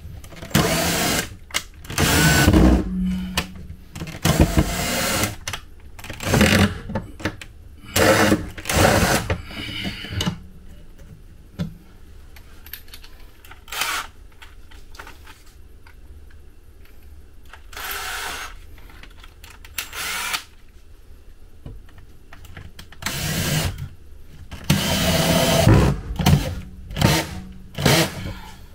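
Cordless drill-driver running in repeated short bursts as it drives screws into a wooden wall panel. The bursts come close together in the first ten seconds, then there is a quieter stretch with one burst, and a second cluster of bursts comes near the end.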